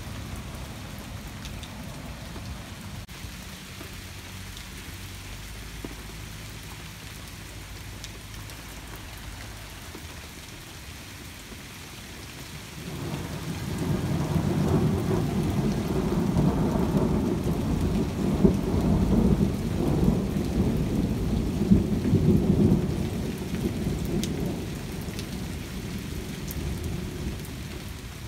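Steady rain falling, then about halfway through a long, low rumble of thunder rolls in, lasting around ten seconds before fading away near the end.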